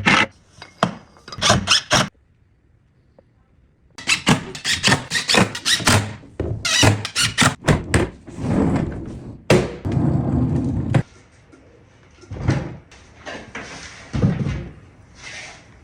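Knocks and thuds of wooden furniture being handled and worked on in clustered stretches, with a brief pause about two seconds in.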